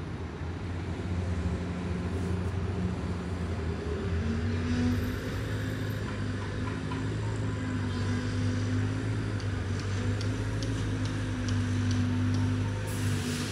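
A motor vehicle's engine running steadily nearby as a low hum, its pitch stepping up slightly about four seconds in, with a few faint clicks later on.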